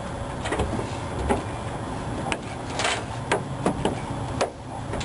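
Irregular sharp clicks and light knocks of chrome roof trim and its fasteners being handled and fitted, one a short scrape near the middle, over a steady low hum.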